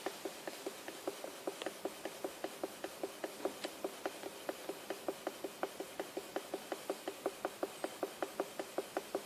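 Accelerator pedal of a new Kia knocking: an even run of light clicks, about five a second. Kia says this pedal noise is acceptable.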